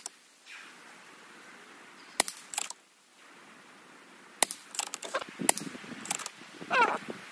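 Shrouded FX Impact M3 PCP air rifle firing a string of shots, each a short, sharp, muffled crack. The first shots come a couple of seconds apart and the later ones quicker. Smaller mechanical clicks between the shots are the side lever cycling the next pellet.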